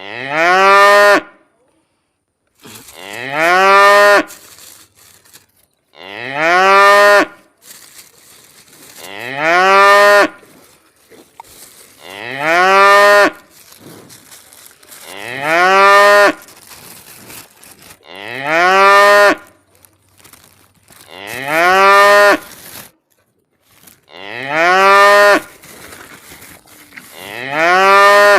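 A cow mooing over and over: about ten long moos roughly three seconds apart, each rising in pitch at the start and then holding.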